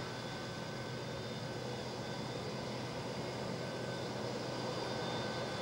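Boeing 727-200 freighter's Pratt & Whitney JT8D engines running at a distance: a steady hum and whine with a constant high tone.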